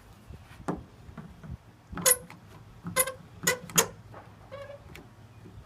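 A handful of sharp metallic clinks and knocks with a brief ring, as a copper pipe and quick clamp are moved and re-clamped on a truck tailgate.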